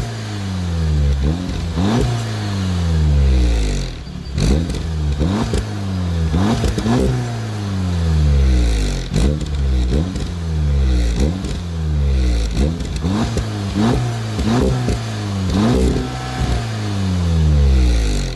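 Sports car engine revving hard and repeatedly, its pitch sweeping with each rev, with a sharp crack about every second.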